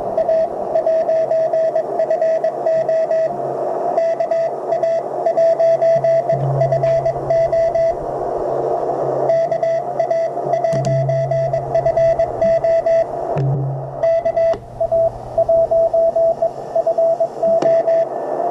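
Morse code (CW) signal received on a truSDX transceiver: a single steady tone keyed on and off in dots and dashes over radio band hiss, played through an external speaker. A low hum comes and goes underneath.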